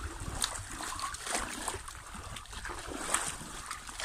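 Pool water splashing and sloshing as arms sweep and cross through it at waist height, in a run of irregular splashes.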